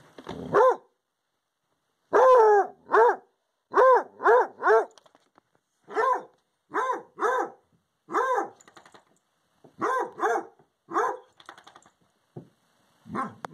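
Redbone Coonhound baying at a porcupine outside the window: about fourteen short, loud bays, singly and in quick runs of two or three, each rising then falling in pitch, with short silent gaps between them.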